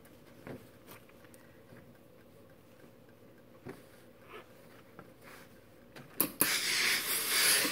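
Quiet rustling and small clicks of fabric being handled and smoothed on an ironing board, then about six seconds in a click and a loud hiss of steam from a steam iron lasting over a second.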